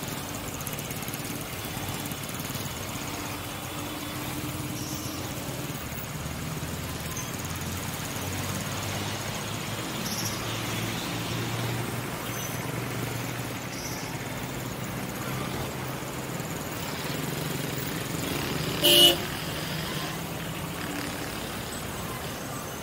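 Dense road traffic around a city roundabout: engines running and tyre noise in a steady rumble. One short, loud horn toot sounds about three-quarters of the way through.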